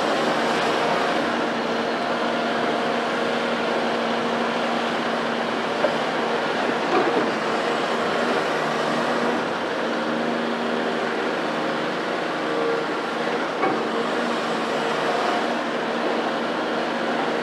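Caterpillar hydraulic excavator's diesel engine running steadily as the machine swings and digs, with a few short sharp knocks.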